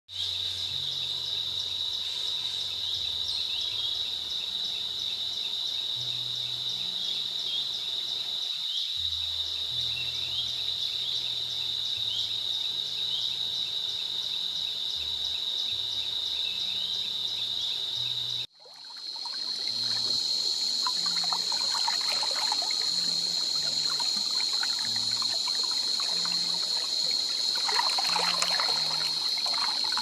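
A steady, high-pitched chorus of insects with a rapid pulse over a shallow stream trickling through forest. After a sudden cut about two-thirds of the way in, the stream is heard up close, gurgling and splashing, with the insects still droning behind it.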